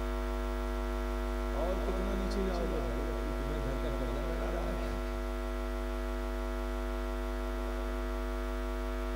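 Steady electrical mains hum with a buzz of many overtones through a public-address system, with faint voices murmuring underneath for a few seconds from about a second and a half in.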